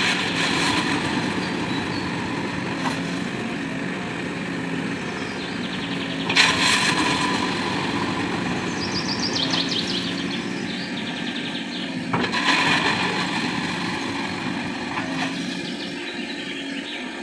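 Backhoe loader's diesel engine running steadily, with loud noisy surges about every six seconds and a brief run of rapid ticks near the middle.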